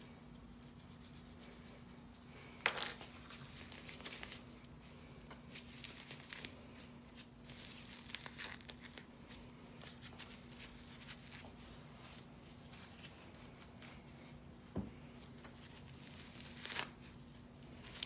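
Thick matted hair being torn and pulled off a Shark Ion RV700 robot vacuum's clogged roller brush by gloved hands: faint, scattered ripping and crinkling, with a sharp snap about three seconds in and another near the end.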